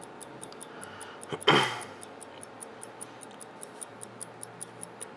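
Hamilton 992B 21-jewel pocket watch movement ticking steadily at about five ticks a second, its 18,000-beat-per-hour escapement running, heard with the case back off. A short burst of noise stands out about a second and a half in.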